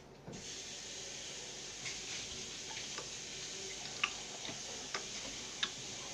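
Wet clicks and squelches of homemade glue-and-borax slime squeezed and kneaded by hand: a handful of short sharp snaps at irregular intervals, over a steady hiss that comes in just after the start.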